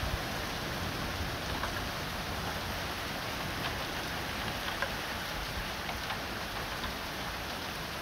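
Small hail falling steadily on a lawn, pavement and porch roof: a steady hiss with scattered light ticks of individual hailstones.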